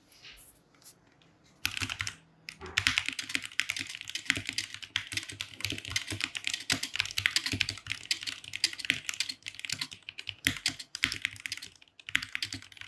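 Typing on a three-year-old Vortex VX5 mechanical keyboard, long uncleaned, with its original switches and keycaps: a fast, continuous clatter of keystrokes that starts about two seconds in, pauses briefly near the end, then resumes.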